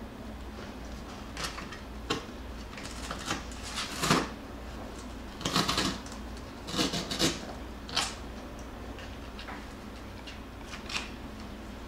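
Jackabee puppies shifting about in a cardboard box lined with a burlap sack: short, irregular bursts of rustling and scratching, the loudest clustered around the middle.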